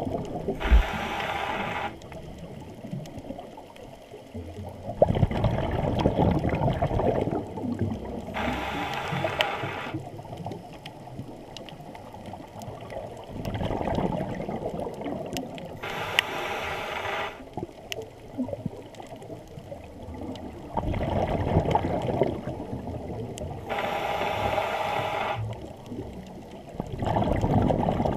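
Scuba diver breathing through a regulator underwater: a hissing inhale about every eight seconds, each followed a few seconds later by a longer burst of rumbling exhaust bubbles, four breaths in all.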